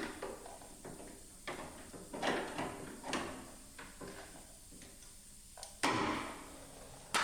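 Irregular metal knocks and clanks, about ten separate strikes spaced unevenly, each ringing briefly, from the Beetle's sheet-metal body being worked during removal of the spare tire well.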